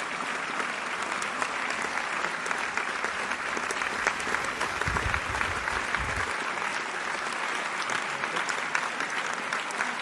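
A crowd applauding steadily, many hands clapping at once.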